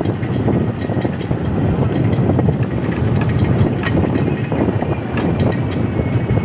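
Vehicle engine idling in neutral while coasting down a steep, rough road, with a steady rumble of tyres and bodywork and scattered small knocks and rattles from the bumpy surface.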